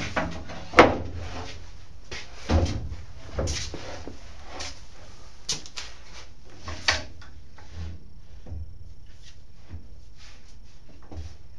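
A long wooden board being set down and shifted on a table saw's table, knocking and bumping several times, the loudest knock about a second in; the saw is not running.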